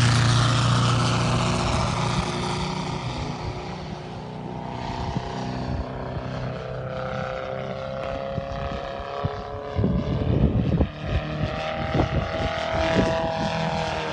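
Valach 420 petrol engine of a giant-scale RC Yak 54 running at high throttle on takeoff. It is loudest at the start and fades as the plane climbs away, its pitch sliding up and down. Gusts of wind buffet the microphone in the second half.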